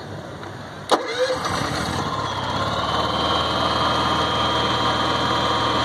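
Honda EU7000is fuel-injected inverter generator making its first start: a sharp click about a second in, then the engine catches and settles into a steady idle with Eco throttle on.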